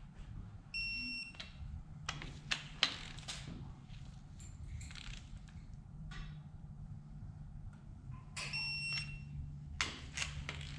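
Electronic torque wrench beeping twice, a short steady beep about a second in and again near the end, signalling that a cylinder head bolt has reached the set torque of 50 ft-lb. Between the beeps come sharp clicks and knocks of the wrench being worked.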